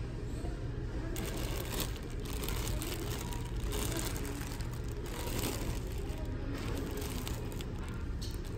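Clear plastic bags around plush toys crinkling under a hand in a few short rustles, over a steady low background hum.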